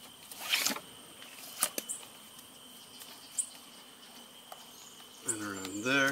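Nylon tie-down strap being threaded and pulled around a spare knobby tyre strapped to a motorcycle's front: a few short rustles and knocks of webbing and buckle, the loudest about half a second in. A steady high insect chirring runs underneath, and a man's voice makes a brief wordless sound near the end.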